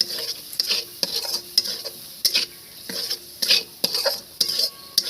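A utensil stirring and scraping a masala of spices in hot oil around a pan, knocking against the metal about three times a second, over a steady sizzle as the masala fries down (kosha) for a curry.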